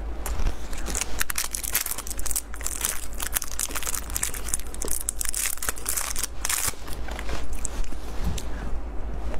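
Plastic wrapper of a Snickers bar crinkling and tearing as it is torn open by hand, a dense run of crackles that thins out about seven seconds in.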